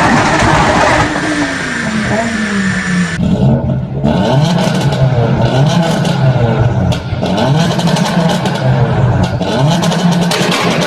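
Tuned car engine revved in short blips, its pitch rising and falling about once a second, with crackles from the exhaust.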